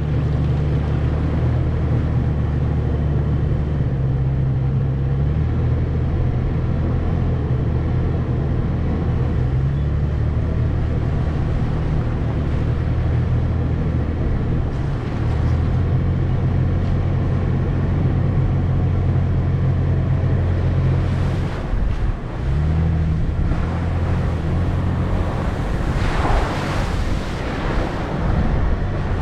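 Toyota FJ Cruiser's 4.0-litre V6 running steadily at low revs while driving a rough dirt forest road. The engine pitch shifts a few times, with a brief drop in level a little past three-quarters of the way through, and a short rushing noise follows near the end.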